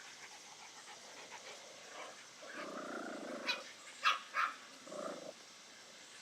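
Puppies making dog sounds: a drawn-out low growl, then a few short, sharp yips in quick succession.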